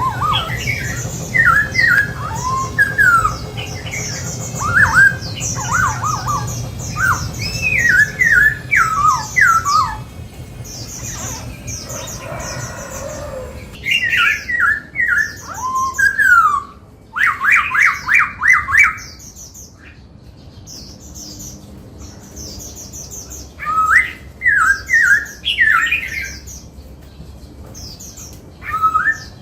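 Black-throated laughingthrush singing: bursts of rapid, sliding whistled notes, paused briefly twice.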